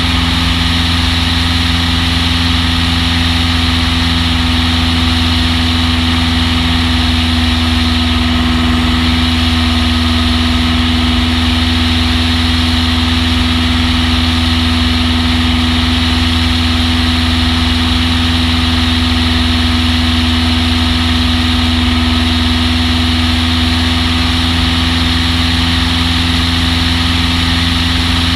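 Long-EZ's piston engine and pusher propeller running steadily at an unchanging speed, with a constant low drone and hiss.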